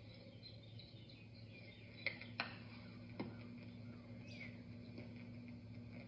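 Microwave oven running with a steady low hum, with a few sharp clicks about two and three seconds in and one short falling high chirp a little past four seconds.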